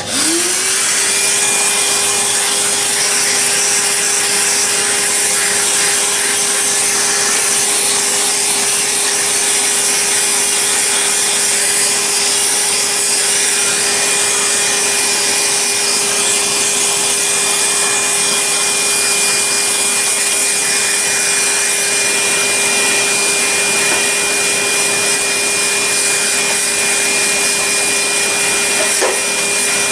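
Vacuum cleaner motor spinning up at switch-on and then running steadily with a high hiss of suction, used to clean dust out of an old upright vacuum.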